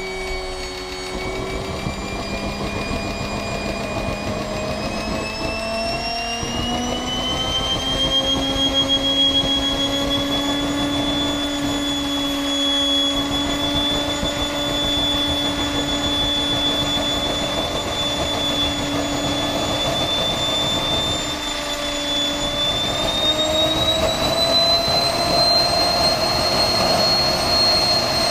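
Wren 44 model turboprop engine running on its first startup, a steady turbine whine with the propeller turning. The whine climbs in pitch over the first several seconds, dips briefly about three quarters of the way through, then climbs again, while air bubbles are still being worked out of the fuel system.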